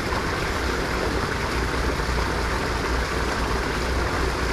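Fast stream water rushing steadily over rocks in a small cascade into a pool.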